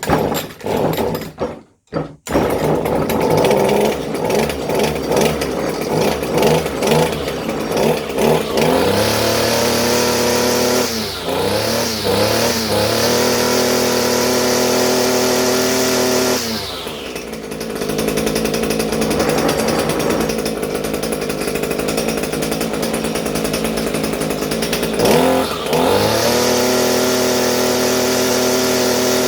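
Echo SRM-230 string trimmer's two-stroke engine pull-started: a few quick pulls, then it catches about two seconds in and runs on its newly replaced carburetor. Its speed rises and falls several times, dropping lower for a few seconds around the middle before picking up again near the end.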